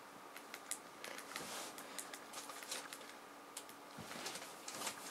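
Faint, irregular key clicks of typing on a laptop keyboard, over a faint steady electrical hum.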